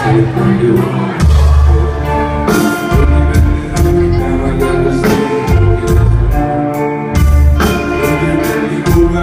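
Pop song with a steady beat, bass and instruments, possibly with sung vocals.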